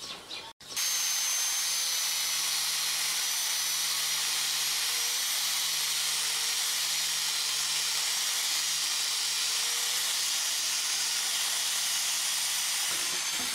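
Electric angle grinder with a thin zip-cut disc running at steady speed while cutting through PVC pipe: a steady high whine over hiss, starting suddenly about a second in.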